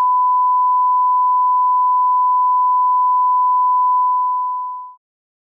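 1 kHz line-up test tone that goes with colour bars: a single steady pure tone that fades away over about its last second and stops shortly before the end.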